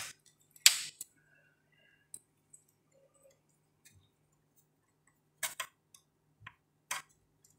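Scattered sharp clicks and taps of a SATA power connector and cable being handled and pushed onto a hard drive: a louder click under a second in, then a cluster of clicks later on.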